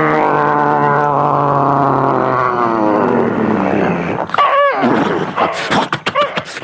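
A man imitating an aircraft engine with his voice: a loud, pitched drone that slowly falls in pitch and dies away about three seconds in. Short arching whoops follow, then a patter of sharp clicks near the end.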